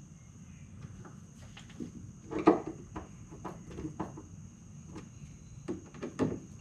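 Scattered light clicks and knocks of hand work on old plastic interior trim panels, a screwdriver snugging the trim screws by hand. The loudest knock comes about two and a half seconds in, with a few more near the end.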